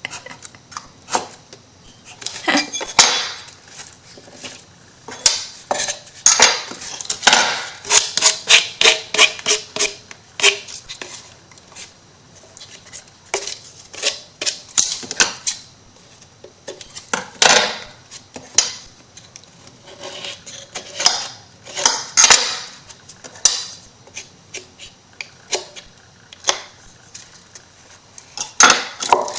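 Irregular clicks, taps and clatter of small hard objects, such as craft tools and MDF wood pieces, being handled and set down on a tabletop.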